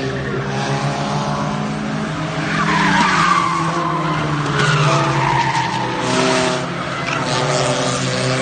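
Several race car engines running at speed together, their pitches overlapping. A high whine falls in pitch about three seconds in, and another about five seconds in.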